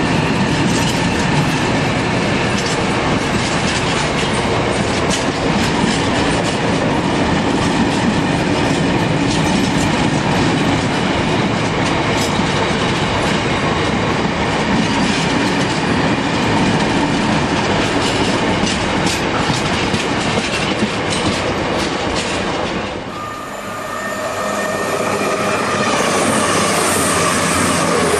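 Bogie aggregate hopper wagons of a freight train rolling past, their wheels clicking over rail joints and squealing at times. About 23 s in the sound cuts abruptly to a CrossCountry passenger train passing close by, with a steady whine.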